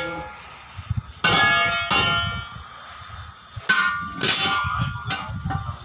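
Steel rim ring of a truck wheel clanging against the steel wheel rim as it is handled and set in place: a few sharp ringing metal clangs, one about a second in and two more a little past halfway.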